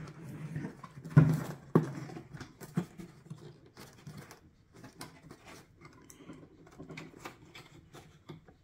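Hands handling a plastic Mazda 6 xenon headlight housing: a sharp knock about a second in, a second one just after, then scattered light clicks and taps.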